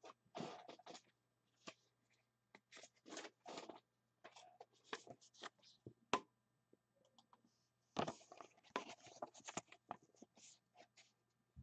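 Faint, irregular scraping and rustling of trading cards and plastic card sleeves being handled, coming in short spells with brief pauses.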